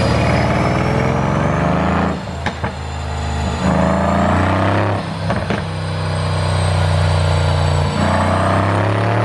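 Mercedes-AMG C63 S twin-turbo V8 revving up and dropping off three times, with sharp pops and cracks from the exhaust about two and a half and five and a half seconds in, just after the revs fall: the overrun crackle of a pop-and-bang tune.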